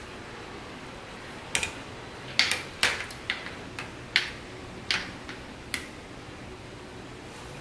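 A stainless steel ladle pressing pickled vegetables down into a glass jar of brine and clinking against the glass. A dozen or so sharp clinks come irregularly from about a second and a half in, over a faint steady hiss.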